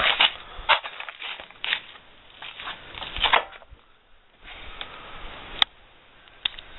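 Clear plastic bag crinkling and rustling in bursts as kit parts are handled, with a couple of sharp clicks near the end.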